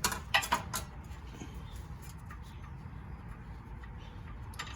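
Light metallic clicks and clinks from a wheel hub assembly and its mounting bolt being fitted by hand. They come in the first second and again near the end, with a low steady hum between.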